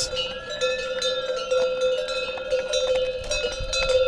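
Bells on pack yaks clanking and ringing steadily as the animals walk down stone steps, with several ringing tones sounding together.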